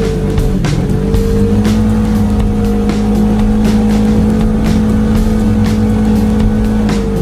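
Polaris side-by-side's engine running at high, steady revs, with a short dip in pitch that climbs back about a second in and again at the very end, over frequent sharp knocks.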